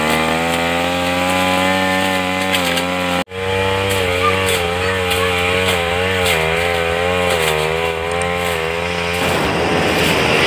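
Motorised grass cutter engine running fast and steady, its pitch wavering slightly. About three seconds in, the sound cuts out for a split second, and near the end it turns rougher and noisier.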